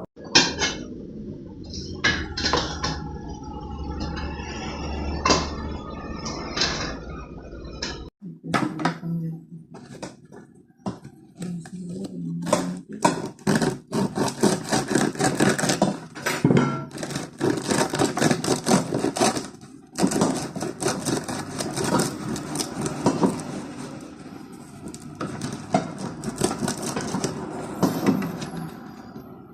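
Crisp crust of freshly baked homemade ciabatta crackling, a dense run of sharp crackles and snaps from about eight seconds in, after a few scattered knocks.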